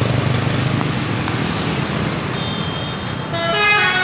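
Bus traffic rumbling, then about three seconds in the Armada Jaya Perkasa bus's 'telolet' musical horn starts sounding, loud, with several tones at once.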